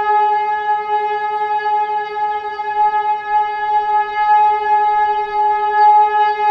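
Civil defense air raid siren sounding a steady, unwavering tone.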